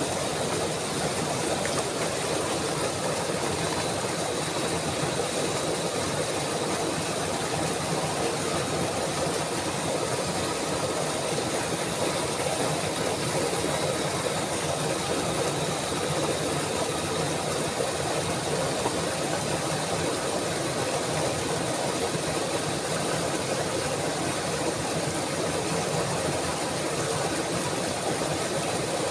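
Steady rushing water, an even noise that does not change.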